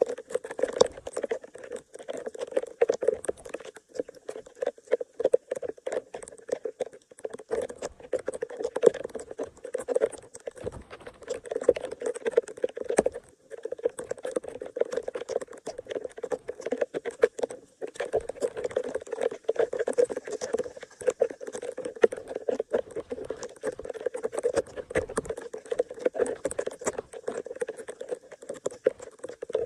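Steady patter of rain falling on the flooded street and standing water, a dense run of small drops.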